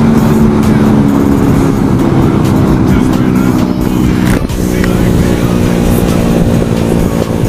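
Background music over the steady running of a 50cc four-stroke scooter engine at cruising speed, with a clear change in pitch about four and a half seconds in.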